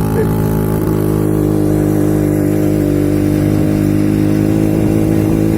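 Yamaha V80's single-cylinder two-stroke engine, on its original unserviced carburettor, running steadily under load while pulling up a steep climb.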